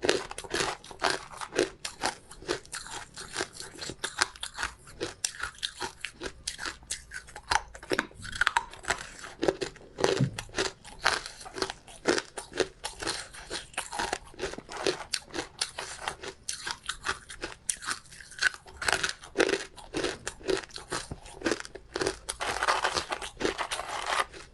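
Ice being bitten and chewed close to the microphone: a dense run of sharp crunches, several a second, with no pause.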